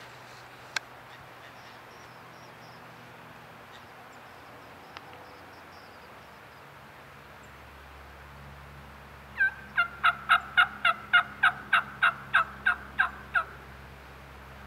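A long run of about fourteen evenly spaced wild turkey yelps, three or four a second, over roughly four seconds near the end, with a single sharp click about a second in.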